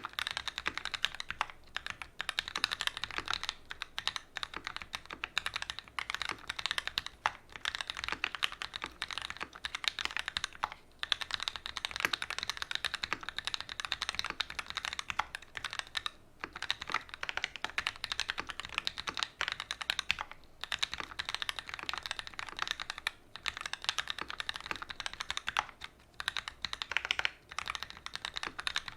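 Continuous fast typing on a custom mechanical keyboard (OTD 360 Corsa) with Gateron Ink Black linear switches in an aluminium plate and GMK doubleshot ABS keycaps: a dense run of keystroke clacks with a few brief pauses.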